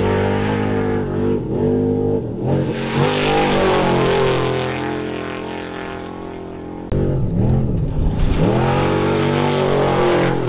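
Off-road racing Trophy Truck engines revving hard as the trucks race past, pitch dipping and climbing with throttle and gear changes. About seven seconds in the sound cuts abruptly to a second truck doing the same.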